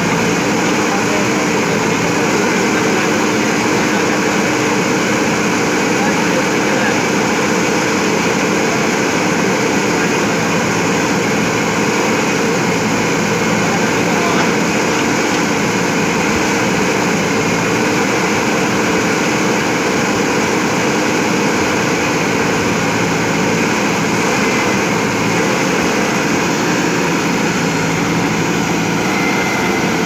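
Diesel engine of a JCB 3DX backhoe loader running steadily under load while the backhoe arm digs, a constant unchanging drone.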